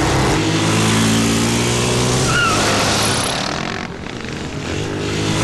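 Motorcycle engine running at a steady pitch, dropping somewhat in level about four seconds in.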